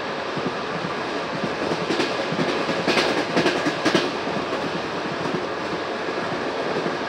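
Passenger train rolling along the track, a steady rumble of wheels on rails with a quick run of sharp clacks about two to four seconds in as the wheels cross rail joints.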